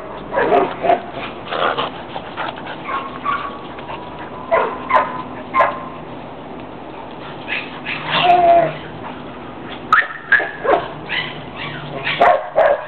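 Two puppies play-fighting, barking in short scattered groups of calls, with one longer drawn-out call about eight seconds in.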